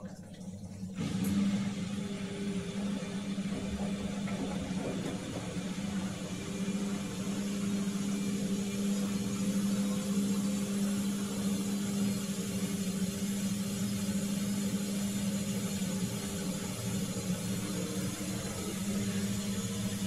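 Siemens WD14H420 washer-dryer running with its top cover off: a motor inside starts suddenly about a second in and runs on with a steady hum and whir.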